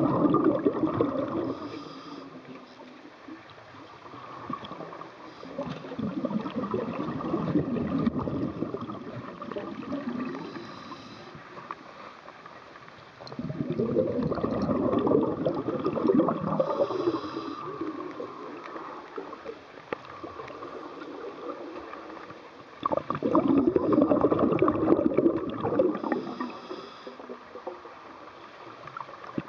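Scuba diver's breathing heard underwater: exhaled bubbles from the regulator rushing and gurgling past the camera in bursts of several seconds, four times, with quieter water noise between.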